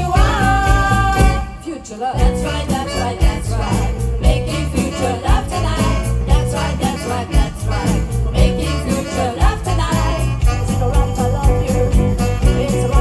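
A live band plays a song with singing over a steady beat. The music drops back for a moment about two seconds in, then carries on.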